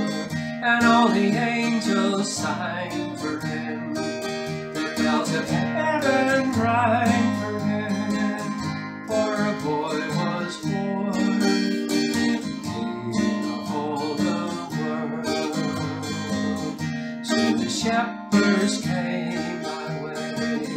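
A man singing a Christmas carol while strumming an acoustic guitar.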